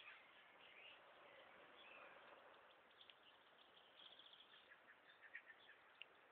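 Faint birds chirping: scattered short high chirps, with a brief rapid trill about four seconds in.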